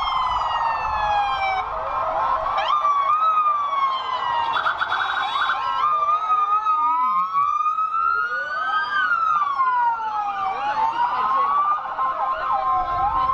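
Several electronic sirens on police and emergency vehicles wailing at once, their pitches rising and falling out of step with each other, with a short rapid warble about five seconds in.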